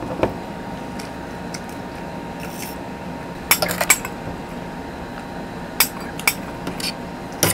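Metal spoons and forks clinking against ceramic plates and a glass bowl while two people eat, with a few scattered clinks and a short run of them about halfway through.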